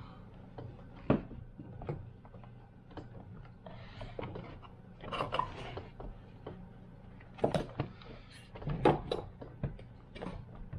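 Hands handling and fitting the plastic casing and parts of a jump starter pack: scattered clicks, knocks and rattles, the sharpest about a second in and two clusters near 7.5 and 9 seconds, over a steady low hum.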